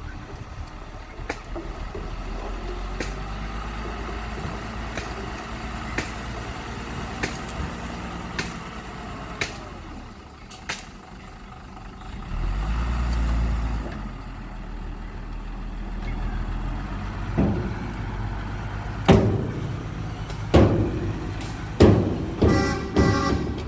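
Heavy diesel engines of an excavator and dump truck running with a steady low drone and faint clicks, rising briefly about halfway through; in the last several seconds a run of loud knocks and clanks.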